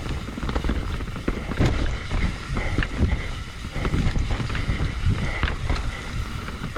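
Mountain bike descending a rough, wet trail: wind on the microphone and tyres rumbling and knocking over roots and rocks, with the bike rattling and a few brief squeals from the brakes.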